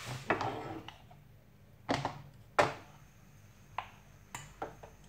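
Wooden spoon knocking and scraping in a pot of thick barley porridge (genfo) as it is mashed and stirred, a handful of separate knocks. A gas hob burner is clicked alight partway through, the sharpest click about two and a half seconds in.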